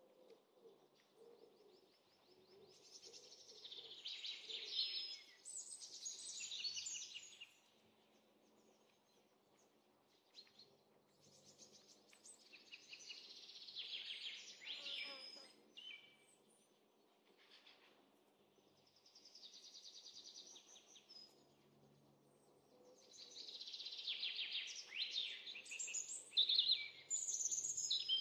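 Small birds chirping and twittering in four bouts of a few seconds each, with quiet gaps between.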